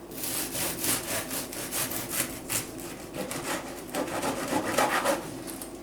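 A knife sawing through a cooled, pan-cooked fruit tea cake as it is cut into wedges, in quick back-and-forth strokes, a few a second.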